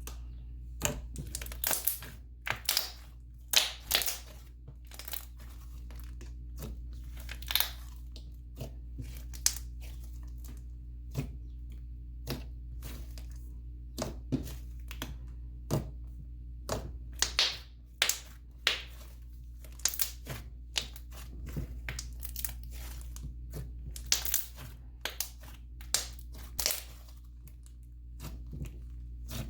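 Thick clay slime with plastic snow being squeezed, stretched and poked by hand, making irregular crackles, clicks and small pops.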